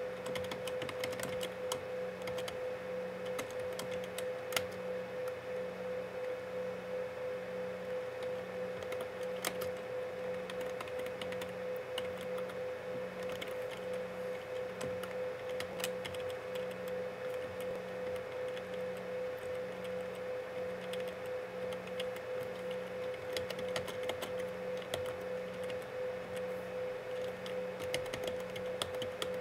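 Typing on a computer keyboard: irregular key clicks, entering a command. Under it runs a steady electrical hum, with a fainter low tone pulsing on and off about twice a second.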